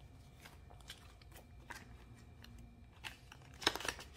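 Paper banknotes rustling faintly as they are handled and folded, then a short burst of crinkling about three and a half seconds in as the bills are slid into a clear plastic cash envelope.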